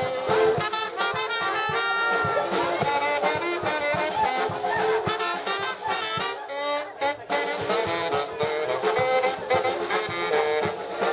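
German-style brass band playing live, a lively tune with horns carrying the melody over a steady beat; the music thins out briefly about two-thirds of the way through.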